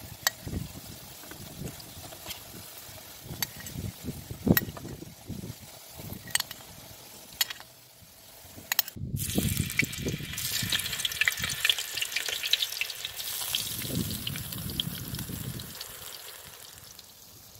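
Sliced potatoes frying in oil in a steel sac pan, with sharp clicks of a fork against the pan and plate about every second as slices are lifted out. After a cut about nine seconds in, there is louder steady sizzling of eggplant slices frying, which fades near the end.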